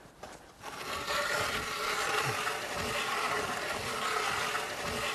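Hand-cranked ice auger drilling into thick river ice, its blades grinding and scraping steadily as it is turned. The grinding starts about a second in.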